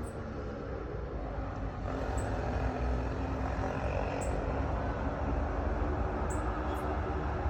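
Steady low engine drone with a rumble, a little louder from about two seconds in.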